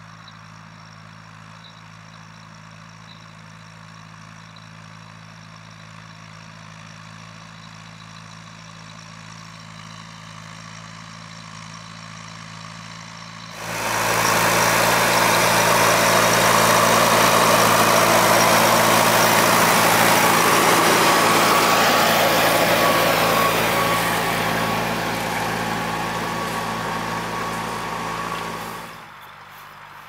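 Fendt 415 Vario tractor's four-cylinder diesel engine running steadily under load while pulling a reversible plough. It is quiet and distant at first, suddenly much louder and closer from about halfway in, easing off somewhat, then dropping back abruptly near the end.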